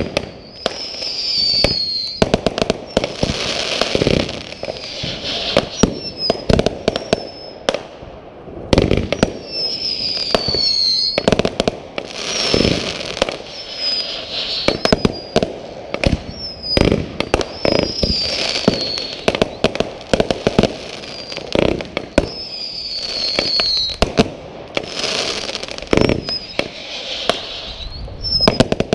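Aerial fireworks firing shot after shot: a steady run of sharp bangs from launches and bursts. Short whistles falling in pitch come several times, and there are spells of hissing crackle from the bursting stars.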